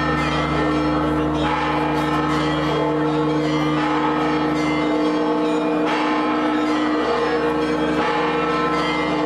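Church bells ringing continuously, their strokes overlapping into one unbroken peal with new strikes about every second.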